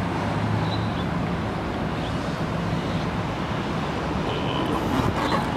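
Steady background rumble with a low hum and no distinct events.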